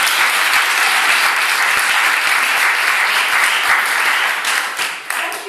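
Audience applauding, a dense, loud clapping that thins out to a few scattered claps near the end.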